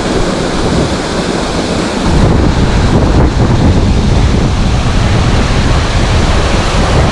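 Wind buffeting the microphone: a loud, steady rumbling rush with no distinct tones, growing heavier about two seconds in.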